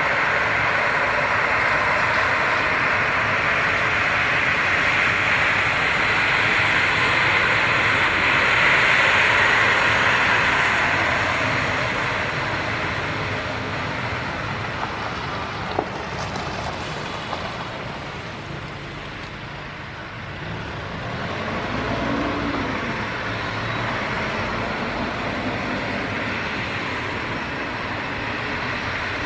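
Embraer 195-E2 airliner's Pratt & Whitney PW1900G geared turbofans running at taxi power as it rolls past on a wet runway: a steady jet whoosh that swells about nine seconds in, fades, then rises again with a faint wavering whine.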